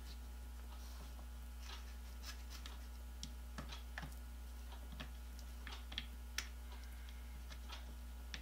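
Faint, irregular clicks and light scrapes of a hand screwdriver turning a screw into a Black & Decker drill's plastic handle housing, with a couple of sharper clicks about six seconds in.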